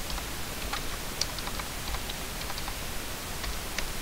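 Computer keyboard keys tapped irregularly, about a dozen light clicks, over a steady faint hiss.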